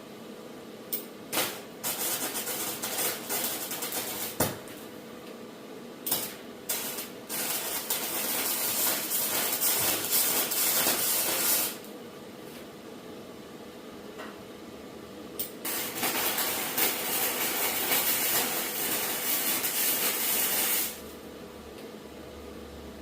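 Arc welding on scrap steel: three welding runs of a few seconds each, a steady crackling hiss, each begun with short stuttering arc strikes.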